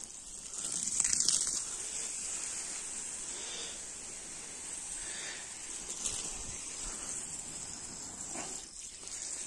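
Garden hose spraying a jet of water over bushes, grass and ground: a steady hiss, louder for a moment about a second in.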